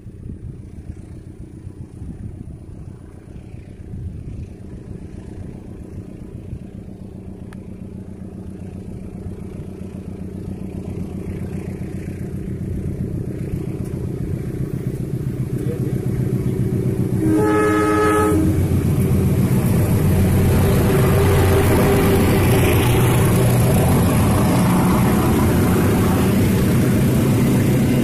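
A diesel-electric locomotive hauling a passenger train approaches, its engine rumble growing steadily louder. About two-thirds of the way in it sounds its horn once, for about a second, and then the locomotive and coaches pass close by with loud engine and rail noise.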